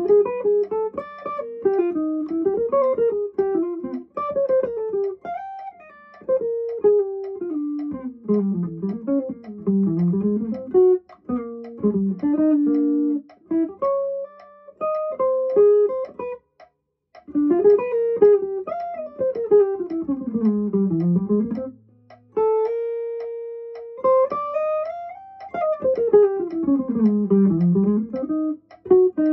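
Electric guitar playing fast single-note lines that run up and down in pitch, with a brief break about sixteen seconds in and a long held note a few seconds later.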